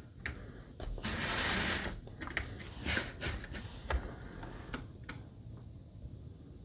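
Quiet handling sounds of ZOYI ZT-MD1 plastic LCR tweezers as their tips are set on a capacitor on a circuit board: scattered small clicks and taps, with a brief rustle about a second in.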